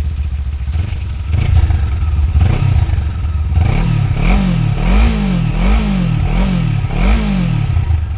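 Kawasaki Ninja 500's parallel-twin engine through its stock exhaust, idling and then revved. A few uneven blips come first, then about five quick blips in a row, each rising and falling, before it drops back to idle near the end.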